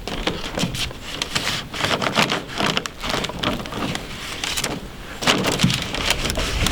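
Irregular rustling, scraping and light knocks of a MiraTec composite trim board being handled and positioned against the corner of a wall.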